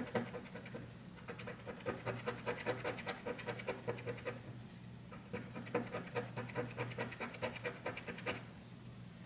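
A penny scratching the coating off a lottery scratch-off ticket in quick, rapid strokes, in two runs with a short pause about four seconds in.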